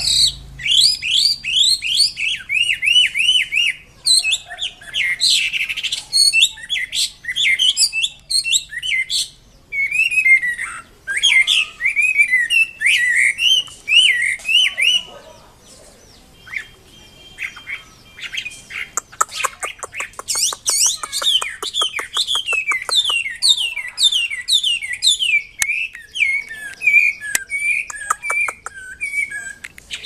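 Chinese hwamei singing vigorously: long, varied runs of rapid, sliding whistled notes repeated in quick series, with a short lull a little past the middle.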